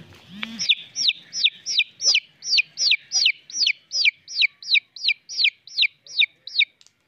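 A bird calling over and over: a rapid, regular series of sharp notes, each sweeping down in pitch, about three a second, starting about half a second in.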